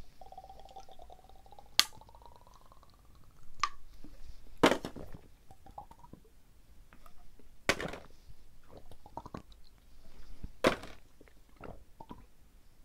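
Rapid drinking from small plastic bottles of Vita Yogu yogurt drink: sucking, slurping and gulping at the bottle mouth, with a loud burst about every three seconds as each bottle is drained and swallowed. A thin whistle rises in pitch over the first three seconds.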